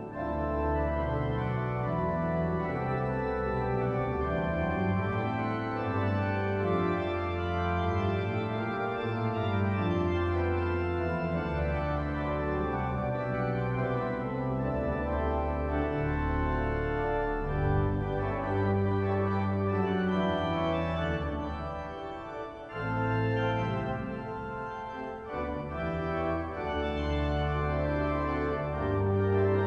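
The pipe organ of St Edmundsbury Cathedral playing full, sustained chords over a deep pedal bass, heard from a 1972 LP recording. The chords change every second or two, with a brief drop in loudness about 21 seconds in before a new chord comes in sharply.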